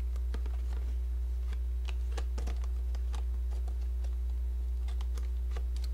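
Fingernails picking and scratching at a stubborn sticker on an aluminium beer can: small, irregular clicks and scrapes. A steady low electrical hum runs under it.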